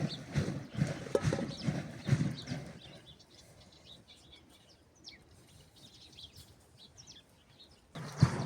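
Dull rhythmic thumps, about two a second, stop suddenly about three seconds in. Quiet outdoor ambience with faint bird chirps follows, and the thumping starts again abruptly near the end.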